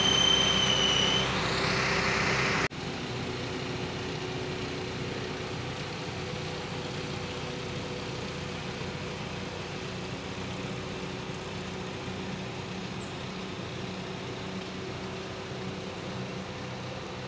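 Aichi SH15B aerial lift truck's engine and hydraulic pump running as the boom is operated. In the first second or so, a high whine sits over the steady hum. After an abrupt cut under three seconds in, a steadier, quieter hum with two faint steady tones continues.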